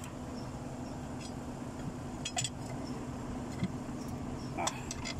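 Forklift engine running with a steady low hum while it lifts a truck transmission. A few light metallic clinks from the lifting chains and shackles come about two seconds in and again near the end.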